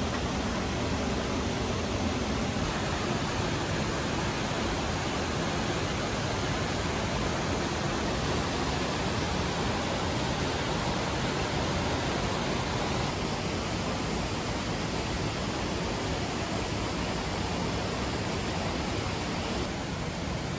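Steady rushing of a waterfall, an even hiss with no distinct events, a little quieter near the end.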